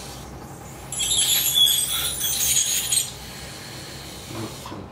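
Powered dental handpiece working on a dog's decayed upper carnassial tooth: a high-pitched whine with spray hiss starts about a second in and stops after about two seconds, over a steady low hum.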